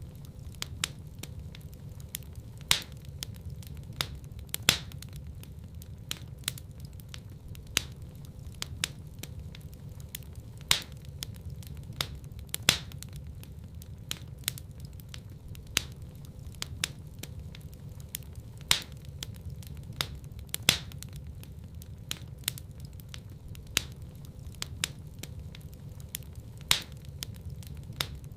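Wood fire burning in a fireplace: a steady low rumble of the flames under constant small crackles, with louder pops that come in pairs about two seconds apart, the pairs recurring about every eight seconds.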